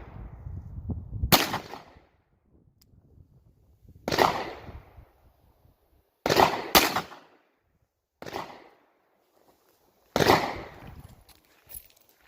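Gunshots from .410 slug loads being fired for a chronograph test, about six sharp reports a couple of seconds apart, each with a short echoing tail. Two of them come in a quick pair just past the middle, and one is fainter than the rest.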